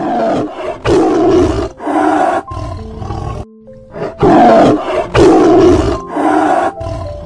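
Lion roaring: a run of about eight loud, rough roars, each under a second long, one after another.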